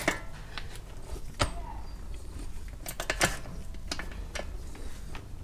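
A handful of sharp metallic clinks and knocks, the loudest about a second and a half and about three seconds in, as a stiff hood-hinge coil spring and the clamped hinge shift against a bolt in a milling machine's chuck while the mill table is raised by hand. A low steady hum runs underneath.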